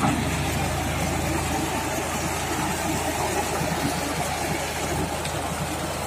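John Deere 5104 tractor's three-cylinder diesel engine running steadily under load as it drives a rotavator through wet mud.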